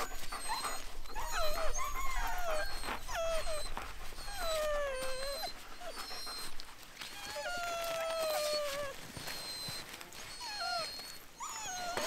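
A team of Siberian husky sled dogs whining and howling while being harnessed: the excited noise of dogs eager to run. Many high, gliding calls overlap throughout.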